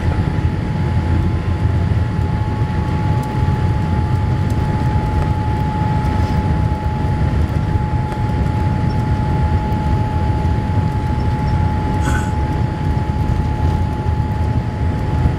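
Cabin noise inside a Boeing 787-8 airliner taxiing: a steady low rumble with a constant whine held on one pitch.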